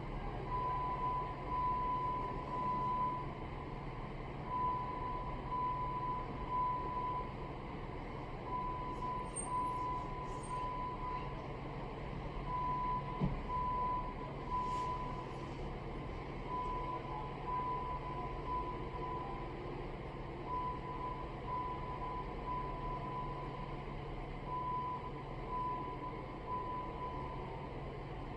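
Building fire alarm sounding, a high-pitched beep repeating in groups of about three with a pause between groups, roughly every four seconds: the temporal-three evacuation signal. A low steady hum runs beneath, and there is a single knock about halfway through.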